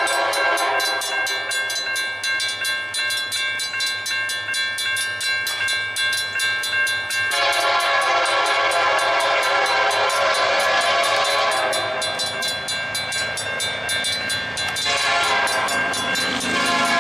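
Diesel freight locomotive's air horn sounding for a grade crossing, a held chord whose pitch pattern shifts about seven seconds in and again near the end.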